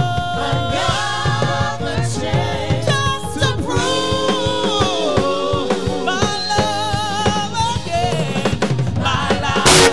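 Live gospel singing: a lead vocalist and backing singers over a band with a drum kit. A loud crash comes near the end.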